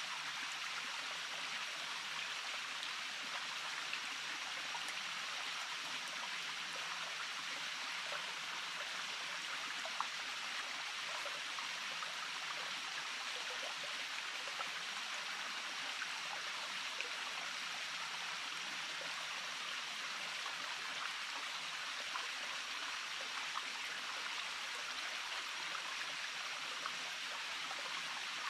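Small forest stream flowing, a steady rush of water with faint occasional ticks and splashes.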